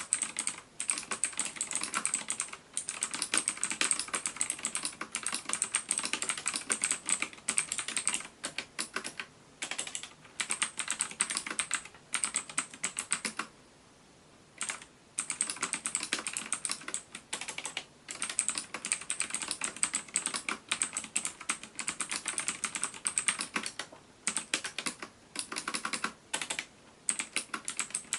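Typing on a Lutis Lunatic K803 mechanical keyboard with Outemu optical switches: a fast, continuous run of key clicks that stops for about a second and a half midway, then resumes.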